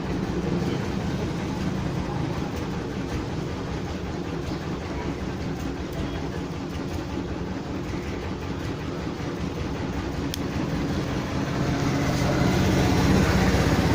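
Steady low background rumble and hiss with a faint hum, with one small click about ten seconds in.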